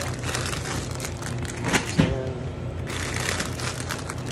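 Plastic snack-chip bags crinkling as they are grabbed and gathered up, with a couple of sharper knocks near the middle.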